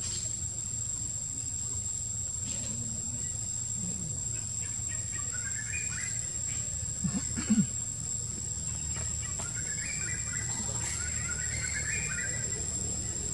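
Outdoor ambience of a steady high-pitched insect drone, with birds twittering about five seconds in and again near the end. A brief low call, the loudest sound, comes about seven seconds in.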